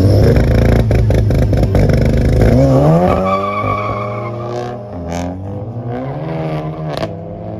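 Volkswagen Jetta engine held at high revs with a rapid stutter on the start line, then launching about two and a half seconds in. Its pitch climbs as the car accelerates, with a sharp drop in pitch near the end at a gear change.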